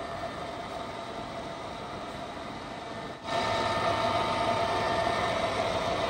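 Csepel RF 50/1250 radial arm drill running: an even machine hum with several steady tones. The hum steps up in loudness a little over three seconds in.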